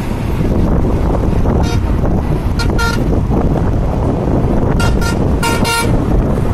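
Passenger train running at speed, heard from an open carriage window: a steady loud rumble of wheels on the rails with air rushing past. Over it come several short horn toots, mostly in quick pairs, between about one and a half and six seconds in.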